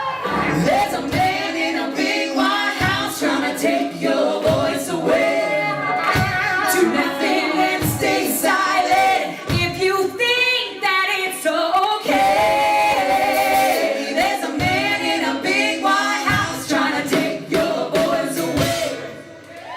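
A cappella group singing a song in several-part vocal harmony over a steady percussive beat; the song ends just before the end.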